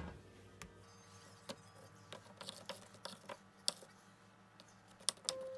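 Light, irregular clicks and taps of a metal fork against a ceramic bowl as donut holes are turned in a bowl of sugar glaze.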